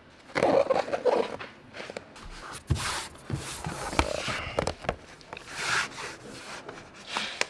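A sheet of EVA foam traction turf being handled and rubbed against a jet ski's hull as it is positioned and pressed down: irregular rustling and scraping, with a couple of short knocks.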